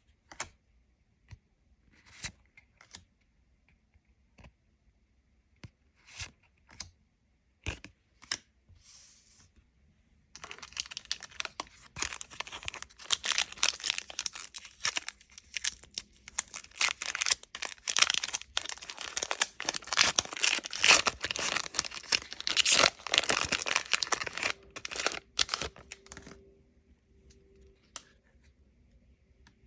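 Light taps and clicks of handling, then a trading card booster pack's plastic wrapper being torn open and crinkled for a long stretch starting about a third of the way in, stopping a few seconds before the end.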